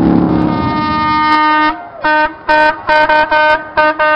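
A motorcycle engine held at high revs for the first second and a half. Over it a vehicle horn sounds one long note that breaks into a quick run of short toots.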